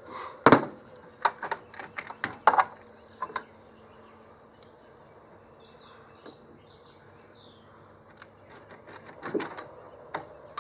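Socket wrench and metal battery hardware clicking and clanking as the battery cable ends and terminals are worked loose: a run of sharp clicks and knocks in the first few seconds, then a few more near the end.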